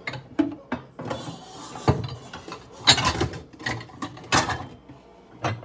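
Kitchen clatter from getting out a plate: a rapid, irregular series of sharp knocks and clinks of crockery and cupboard, with a brief scrape about a second in.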